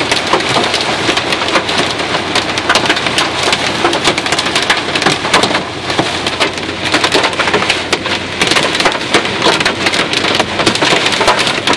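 Hailstones pelting a Range Rover in a dense, continuous clatter of rapid hits, loud enough to worry the driver about damage to the car.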